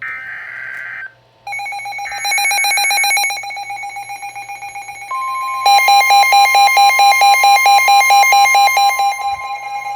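Emergency Alert System alert tones: the end of a warbling digital header burst, then electronic alarm beeping from alert receivers begins about a second and a half in. A steady warning tone joins about five seconds in, and the beeping turns louder and more rapid. Together they announce a severe thunderstorm warning.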